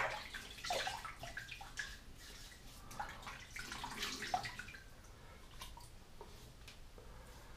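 Water splashing in irregular handfuls as a face is rinsed over a bathroom sink after a straight-razor pass.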